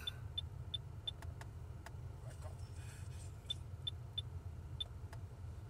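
Sound Storm Laboratories 10.1-inch in-dash touchscreen radio giving short high beeps as its fast-forward button is tapped repeatedly: three quick beeps in the first second, then four more after about three and a half seconds. A steady low hum runs underneath in the car cabin.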